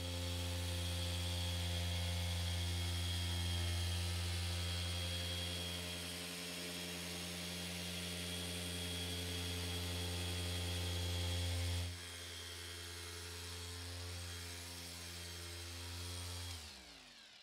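Small machine polisher with a mini pad running steadily on car paint: a steady motor hum with a high whine. The sound changes abruptly about twelve seconds in, and near the end the motor winds down, its pitch falling.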